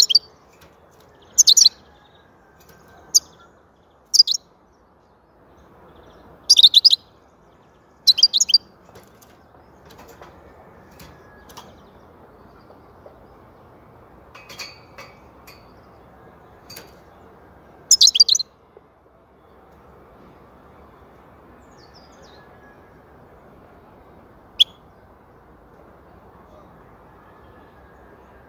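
European goldfinch chirping in short, loud, high bursts: about half a dozen in the first nine seconds, another about eighteen seconds in, and one faint chirp later, with long gaps between them. A faint steady hiss lies under the calls.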